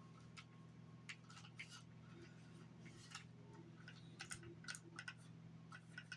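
Near silence with faint, irregular light clicks and ticks from a PlayStation 5 3D audio headset's plastic being handled as it is wiped down with a cloth, over a steady low hum.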